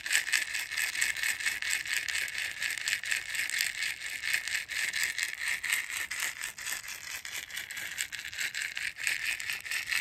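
Woven basket rattle shaken quickly and steadily, a continuous bright seed-like rattling.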